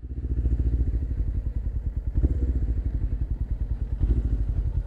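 Suzuki GS500E motorcycle's parallel-twin engine, fitted with a Leo Vince aftermarket exhaust, running steadily with an even beat.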